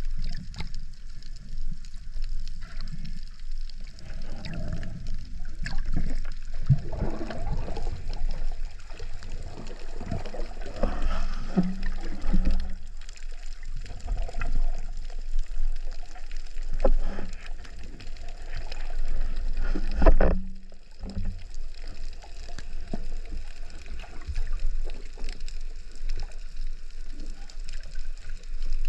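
Underwater ambience: water moving and gurgling, with scattered knocks and clicks from handling gear in the water, and a loud thump about twenty seconds in.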